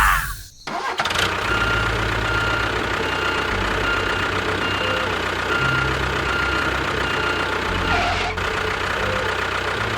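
A small motor-driven machine running steadily, with a faint steady whine over a low, fast pulsing; the sound drops out briefly about half a second in, then carries on.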